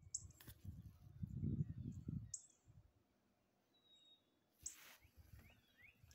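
A few short, sharp bird chirps and one brief thin whistle, heard over low, uneven rumbling for the first couple of seconds.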